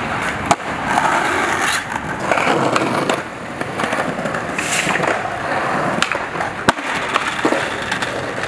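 Skateboard wheels rolling over concrete, broken by several sharp clacks of the board hitting the ground. The loudest clack comes a little before the end.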